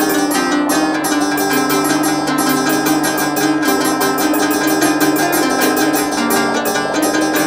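Instrumental music: a plucked string instrument, guitar-like, playing a fast, even run of repeated notes over a steady low line.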